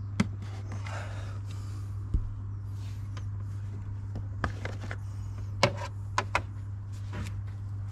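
A rag rubbing over a plastic engine cover, then scattered light clicks and knocks as the oil filler cap is unscrewed and lifted off, over a steady low hum.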